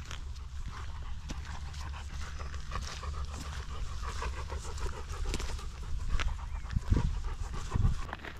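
Bernese mountain dog panting quickly and evenly close by, over a steady low rumble. Two louder low thumps come near the end.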